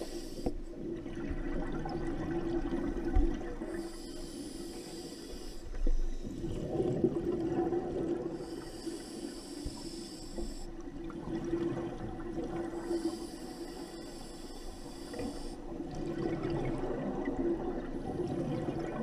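Scuba diver breathing through an open-circuit regulator underwater: a hiss on each inhale, about every four to five seconds, alternating with the gurgling rush of exhaled bubbles.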